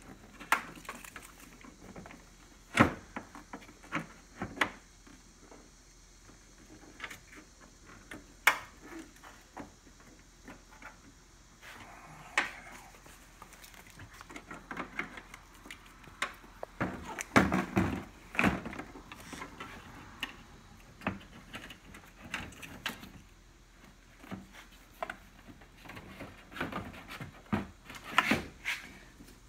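Irregular clicks, knocks and rustling of HID kit wiring and plastic parts being handled in a Porsche Boxster 986's headlight housing bay, with a denser run of knocks a little past halfway and again near the end.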